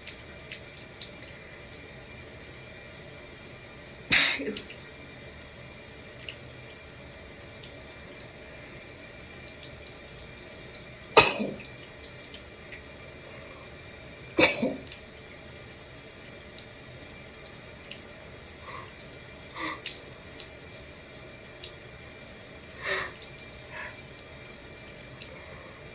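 A person sneezing three times, loudly, about 4, 11 and 14 seconds in, over the steady hiss of running shower water. Several quieter short sounds follow near the end.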